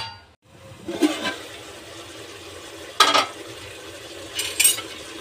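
Aluminium Prestige pressure-cooker lid knocking and clanking against the pot: a soft knock about a second in, a sharp metal clank about three seconds in, and light clinks near the end. Underneath is a faint steady sizzle of mutton cooking in the juices it has released.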